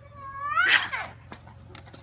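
Cat fight: a cat lets out one loud screech that rises sharply in pitch and breaks off about a second in, followed by short scuffling clicks and scrapes.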